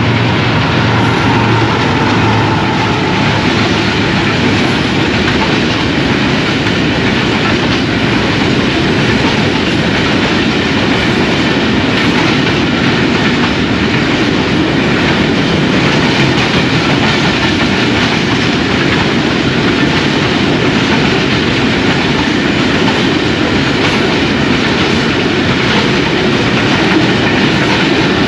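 A freight train headed by a GEU-40 diesel-electric locomotive runs through: the locomotive goes by, then a long line of covered goods wagons rolls past with a steady, loud clatter of wheels on the rails.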